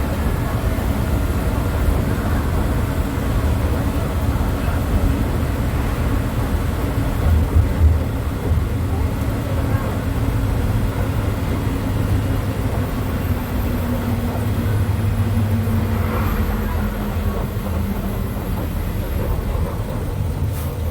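MAN D0834 four-cylinder inline diesel engine of a Volkswagen 17-230 OD bus running steadily with a deep rumble, its pitch easing slowly down in the second half.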